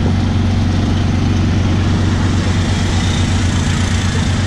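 Tuk-tuk (auto-rickshaw) engine running steadily at cruising speed, heard from inside the open cab, with road and wind noise.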